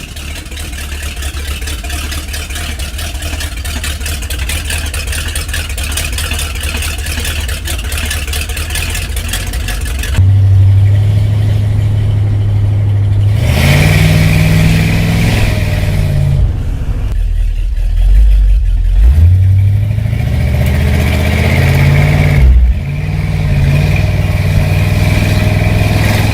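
Cadillac 500 8.2-litre V8 running: a steady engine sound that grows louder for about ten seconds. Then, after a sudden change, the engine is revved several times, its pitch rising and falling between revs.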